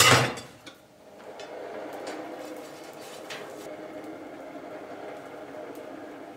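A sharp metal clank at the start as the half-inch square mild steel bar goes into the coal forge's fire pot, then a steady hum and rush of the forge blower driving air through the burning coal.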